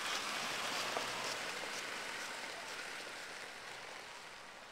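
A car driving away, its tyre and road noise a steady hiss that fades out gradually.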